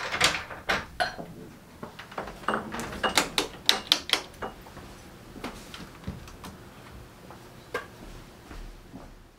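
A glass shop door being opened and let shut, then a quick run of sharp clicks from wall light switches being flipped, with a few scattered knocks and handling noises.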